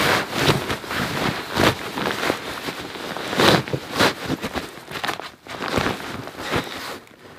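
Rustling and swishing of fabric as a Dutch army modular sleeping bag is stuffed down into its stuff sack in short, irregular pushes.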